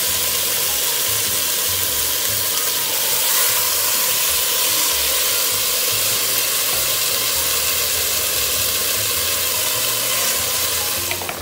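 Yogurt-marinated chicken pieces sizzling steadily in a hot pot as they fry, stirred with a spatula; the sizzle eases off near the end.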